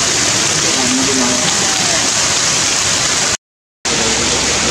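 Heavy rain pouring down steadily, a dense even hiss of drops on stone and foliage; it cuts out abruptly for about half a second around three and a half seconds in.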